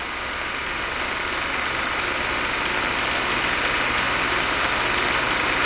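Steady hiss and low hum of an old optical film soundtrack, with faint irregular crackle, growing slightly louder.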